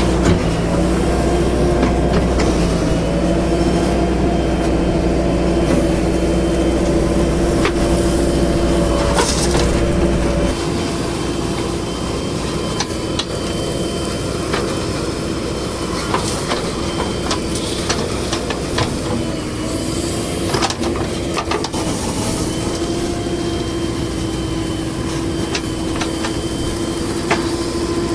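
Heavy diesel engines of a backhoe loader and trucks running steadily, with scattered metallic clanks and knocks. A deep low rumble drops away about ten seconds in, leaving the lighter engine note running.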